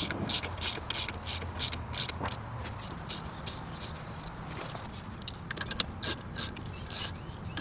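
Hand socket ratchet clicking as it tightens bolts through the steel head of a helical pile to secure a deck post bracket, in an uneven run of sharp clicks about three a second.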